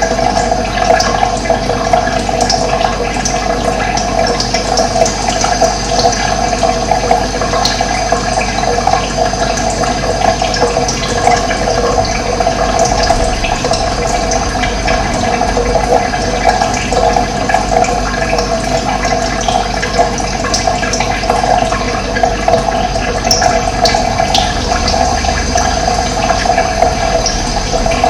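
Running water flowing steadily, a continuous rushing with no pauses, with short high bird chirps scattered through it.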